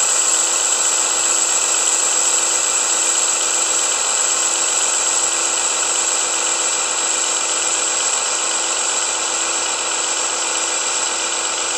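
Sound decoder of an ESU H0-scale model of a DB class 216 diesel locomotive, playing its diesel engine running sound through the model's small loudspeaker as the locomotive drives slowly. The sound is steady, with a high thin whine over it and a low hum that dips briefly about every four seconds.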